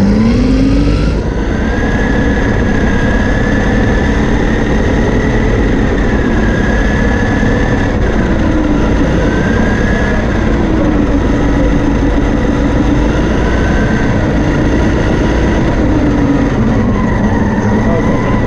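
Whine from the electric motor and drivetrain of an autonomous Donkey Car RC car, heard on board. The whine rises at the very start as the car pulls away, then wavers up and down in pitch as its speed changes around the course, over a loud steady rumble of tyres on carpet and chassis vibration.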